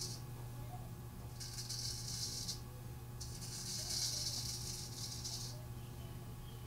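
Straight razor blade scraping through lathered stubble on the neck in an against-the-grain pass: two crisp rasping strokes, a short one about a second and a half in and a longer one from about three to five and a half seconds in.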